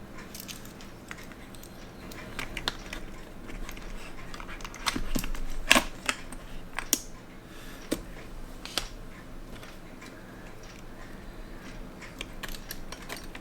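Scattered small clicks and taps of tools and metal parts as a watch movement is fitted into its case, with a louder cluster of clicks about five to six seconds in.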